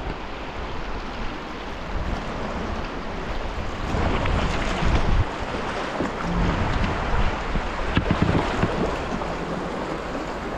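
Rushing river water, a steady hiss, with wind buffeting the microphone in low rumbles that grow stronger in the middle of the stretch.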